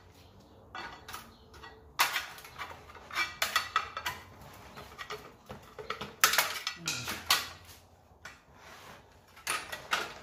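A steel pry bar clanking and scraping against an Audi 2.0T engine's flywheel as the flywheel is levered off the crankshaft flange, giving a series of sharp metallic knocks at irregular intervals.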